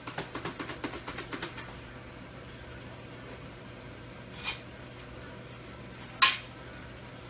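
Packed lunchbox shaken hard by hand, its rice and side dishes rattling inside in quick even strokes, about six a second, stopping after a second and a half. Two short clatters follow, the second louder, over a steady low hum.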